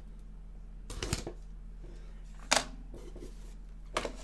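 Handling noise from unboxing a subscription crate: three short sharp clicks and knocks, the loudest about halfway through, over a steady low hum.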